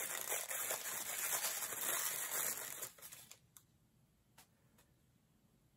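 Thin paper wrapping crinkling and rustling as it is pulled off a small plastic toy piece, stopping about three seconds in; a few faint clicks follow.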